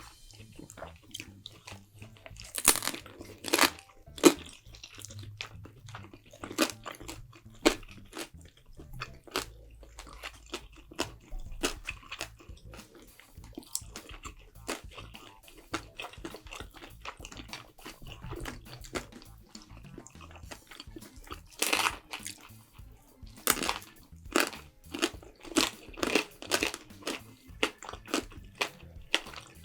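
Close-miked eating: chewing, with many sharp wet mouth clicks and crunches, louder bites clustering a few seconds in and again over the second half.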